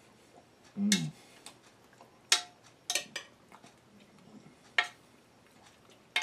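Metal spoon clinking against a dish of stew several times: a sharp clink about two seconds in, two close together about three seconds in, another near five seconds and one at the very end. About a second in, a brief vocal sound from the man eating.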